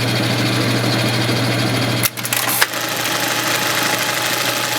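Singer 299 keyhole buttonhole sewing machine running with a steady mechanical hum. About two seconds in, the low hum drops and a sharp clack follows about half a second later.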